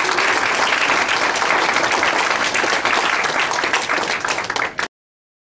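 Audience applause: dense, steady clapping from a crowd that cuts off abruptly near the end.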